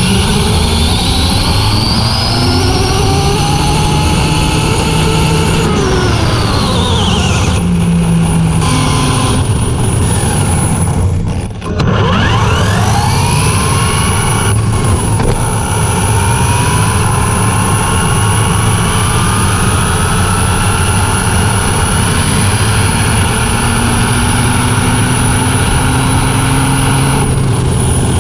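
Onboard sound of an Arrma Limitless V2 electric RC speed-run car: the brushless motor whine glides up and down with speed over a heavy rush of wind and tyre noise. It dips briefly about halfway through before climbing again.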